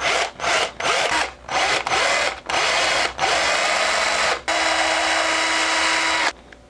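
Cordless drill with a small bit spinning into a small wooden crankbait section. It starts in quick short trigger pulses, then runs longer, the last run lasting about two seconds and stopping near the end.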